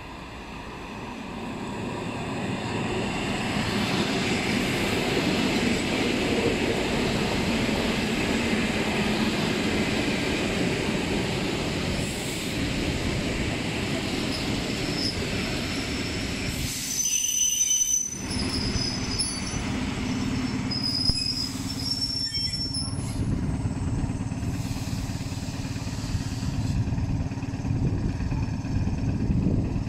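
Russian suburban electric multiple unit pulling into a station: its running noise builds over the first few seconds as it approaches and rolls alongside the platform. After a break partway through come short high-pitched wheel and brake squeals over a steady low hum.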